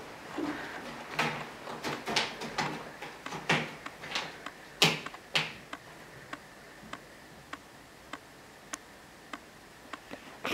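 Footsteps on a hard floor as someone walks into a room, a string of uneven knocks over the first few seconds. After that, faint regular ticking, a little under two ticks a second.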